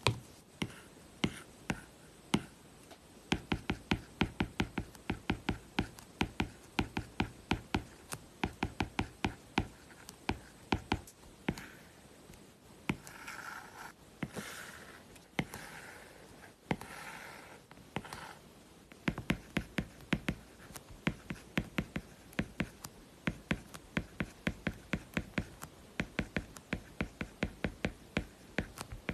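Stylus writing on an iPad fitted with a paper-like matte screen protector: crisp tip taps, several a second, with a stretch of longer scratchy strokes around the middle.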